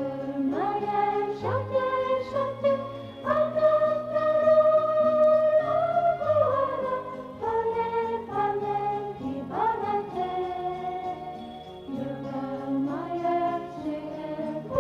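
Background music: a slow, melodic song, sung in long held notes that glide briefly between pitches, over a low sustained accompaniment.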